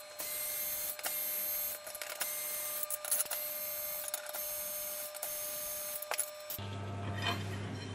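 Small electric screwdriver whirring in a string of short runs, each under a second, backing out the screws of a cast aluminium top plate. It stops about six and a half seconds in.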